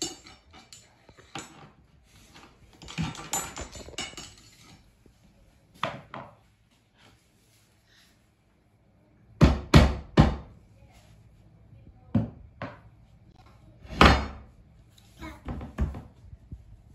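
Rubber mallet knocking on plank flooring and a metal bar, in uneven, dull knocks from about halfway. The loudest come in a quick group of three about nine to ten seconds in, and another near fourteen seconds. Before that, light clinks and scrapes of hand tools.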